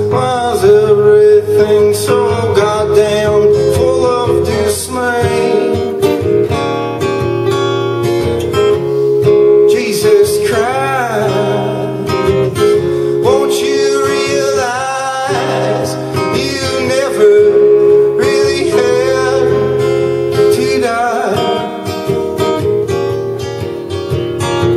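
Live song: a man singing to his own strummed acoustic guitar.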